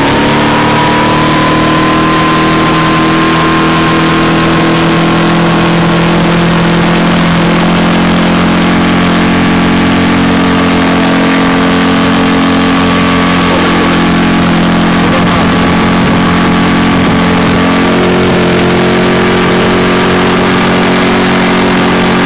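Mercury 6 four-stroke outboard motor running hard under load, its pitch climbing over the first couple of seconds and then holding steady, as it pushes a 3.6 m boat with two people aboard toward planing.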